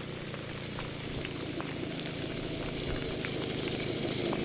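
Steady rain pattering, with single drops ticking close by. A low rumble grows a little louder toward the end.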